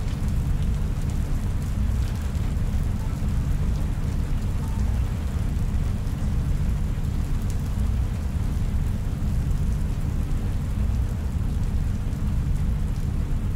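Synthesized sci-fi room ambience: a steady, deep low rumble with a faint even hiss above it, like rain and distant thunder.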